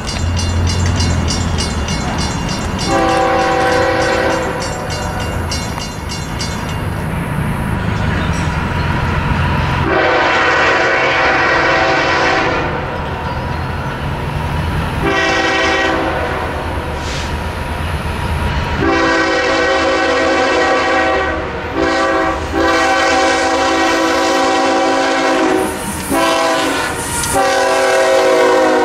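CPKC locomotive's multi-tone air horn sounding long, long, short, long, the grade-crossing signal, over the rumble of the approaching train. A short and a long blast follow near the end, and the horn's pitch drops as the locomotive passes.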